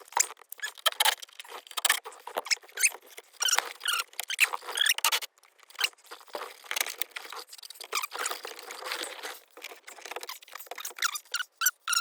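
Plastic interior trim of a Porsche Cayenne's rear grab handle being worked loose by hand: a steady irregular run of small clicks, squeaks and scrapes as the handle's little cover doors are pried open and the handle is taken off.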